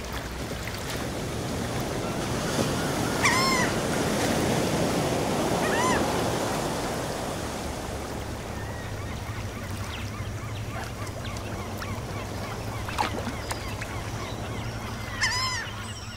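Seaside ambience: sea waves washing steadily, with three short bird calls spread through it.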